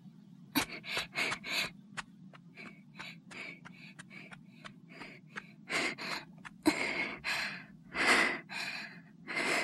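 A young woman panting out of breath with quick, gasping breaths. They come short and rapid at first, then longer and louder in the last few seconds.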